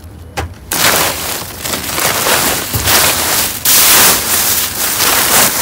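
Clear plastic bags rustling and crinkling loudly as hands rummage through and push them aside, starting just under a second in and going on in uneven surges.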